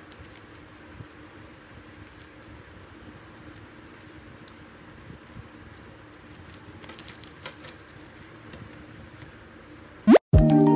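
Clear plastic sleeves of sticker sheets rustling and clicking softly as a stack is fanned through by hand, over a faint steady hum. Near the end a quick rising tone sweeps up, the sound cuts out for a moment, and loud chiming mallet-like music begins.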